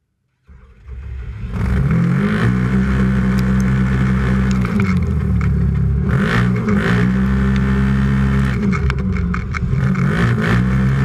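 Race UTV's engine pulling away from the start at full throttle, heard from inside the cab: the sound cuts in about half a second in and builds to full power within about a second. The engine note dips and climbs back several times, and dirt thrown up by other machines clatters against the cab around the middle and near the end.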